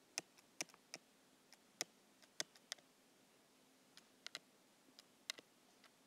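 Stylus tip tapping on an iPad's glass screen while handwriting: about a dozen faint, sharp clicks at irregular intervals, with a pause of about a second in the middle.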